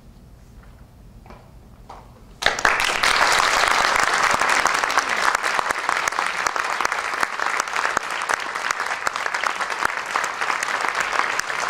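An audience applauding, starting suddenly about two and a half seconds in out of a hushed room and then going on steadily with dense clapping.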